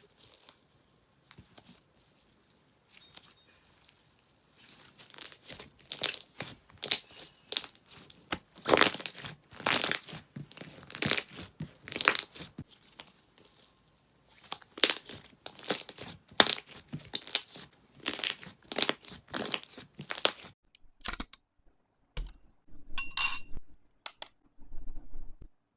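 Slime being worked by hand, giving runs of sharp, sticky crackling and popping clicks that grow dense after a few quiet seconds and thin out near the end. A brief high ringing clink sounds near the end.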